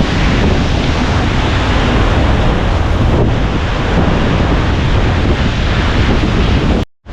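Loud, steady rushing of a waterfall, mixed with wind buffeting the microphone. It cuts off abruptly near the end.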